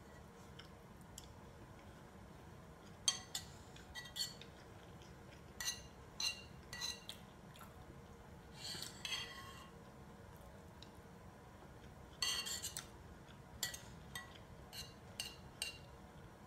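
A metal utensil scraping and clinking against a glazed ceramic bowl as the last of the food is scooped up. The strokes are short and irregular, with longer scrapes about nine and about twelve seconds in.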